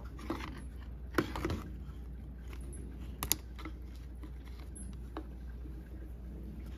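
Light plastic clicks and taps from a DeWalt cordless drill's housing being handled as its rear motor cap is unscrewed and pulled off, with the sharpest clicks about a second in and again about three seconds in.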